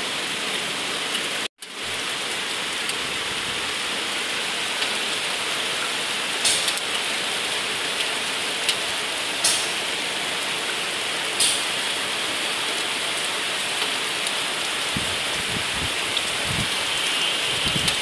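Heavy rain pouring down steadily, a dense even hiss, with a few sharper ticks of drops landing close by.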